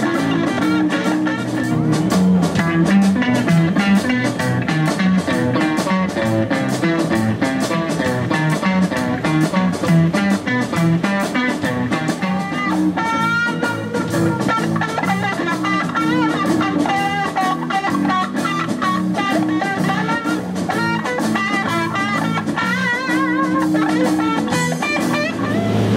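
Live rock band with a Stratocaster-style electric guitar playing a lead solo of bent, wavering notes over a drum kit.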